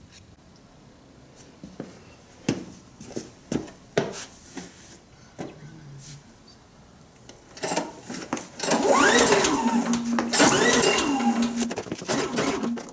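Champion 4000-watt Digital Hybrid inverter generator being pull-started: from about eight seconds in, repeated pulls on the recoil starter with a rising whir as the engine turns over without catching, which the owner puts down to it being out of gas. Before that, scattered clicks and knocks of handling.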